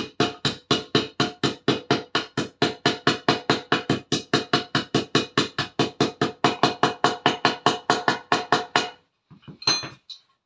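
A ball-pein hammer tapping a greased pivot sleeve into a motorcycle's aluminium swing arm, quick even blows of about four a second with a metallic ring. The tapping stops about nine seconds in, followed by two or three separate knocks.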